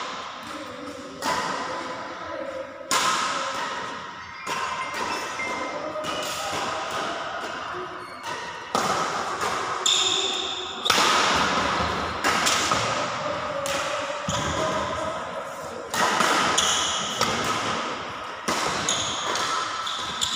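Badminton racket strings hitting a shuttlecock in a running rally, a sharp hit about every one and a half to two seconds, each one ringing on in the hall's echo.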